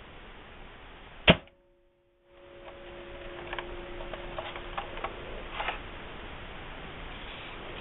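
Modified ERTL pump-action toy shotgun firing: one sharp snap about a second in, then a faint steady ringing and a few light clicks of the gun being handled.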